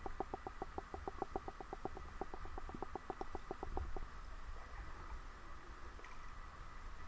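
Underwater recording: a fast, even train of clicks, about nine a second, that stops about four seconds in, over a low rumble.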